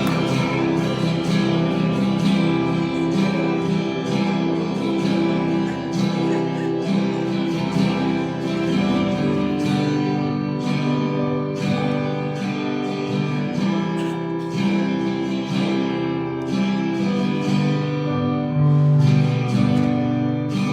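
Music with an acoustic guitar strummed in a steady rhythm.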